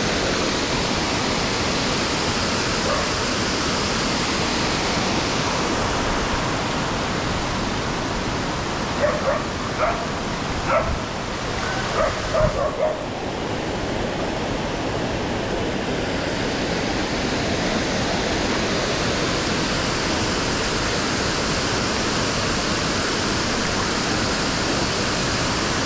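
Steady rushing of a waterfall. About nine seconds in, a dog barks in a quick string of six or seven barks over roughly four seconds.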